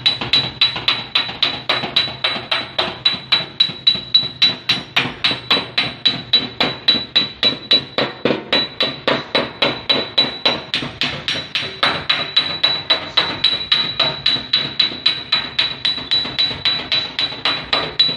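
Body hammer beating out a dent in a car's sheet-steel fender: fast, even blows at about three to four a second, each with a high metallic ring.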